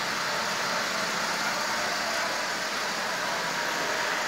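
Lionel toy steam locomotive, built from a 1060 shell on a salvaged motor, running steadily around the track while pulling eight cars: an even, unbroken whir of the electric motor and rumble of the wheels on the rails.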